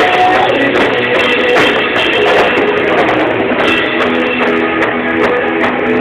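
Rock band playing at a sound check: guitar over a steady drum kit beat, with sustained notes.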